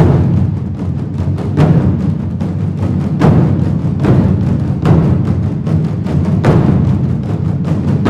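An ensemble of red Chinese barrel drums played together: dense, continuous drumming with heavy accented strokes that fall at an even pulse.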